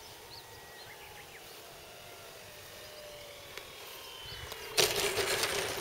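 Electric RC Pilatus Porter model's motor whining faintly at low throttle on landing approach, its pitch falling slowly, with a few short bird chirps. About five seconds in, a sudden loud rushing noise comes in and carries on.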